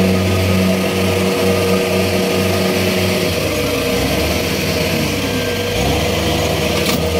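Rice combine harvester's diesel engine running steadily as the machine churns through deep, waterlogged paddy mud. The engine note shifts about three seconds in and returns to its earlier sound just before the end.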